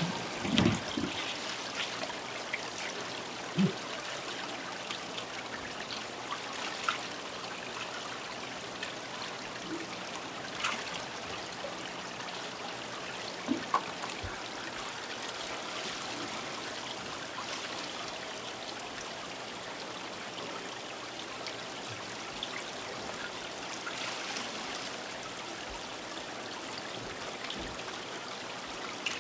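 Water running and splashing steadily into live seafood tanks, with a constant trickling rush. A few short knocks and clatters break through, the loudest about half a second in.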